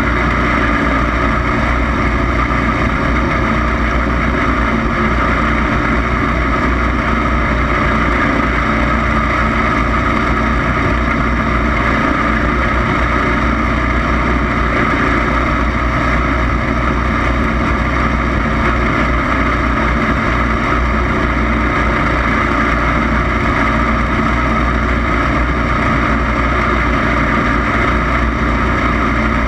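Racing lawn mower engine running steadily under load during a race, heard close up, its pitch holding nearly constant with no marked revving.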